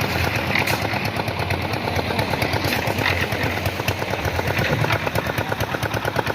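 Concrete mixer machine's engine running steadily with a rapid, even knocking pulse, the drum mixing.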